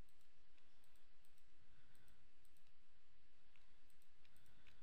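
Sparse clicking from a computer mouse and keyboard while modelling: a handful of short sharp clicks, three of them in the last second and a half, over a faint steady hiss.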